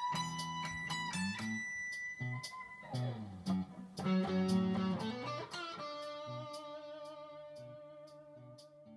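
Squier 70s Thinline Telecaster with humbuckers, played through a Fender Supersonic amp: picked notes and a couple of sliding notes, then a chord left ringing and slowly fading out near the end.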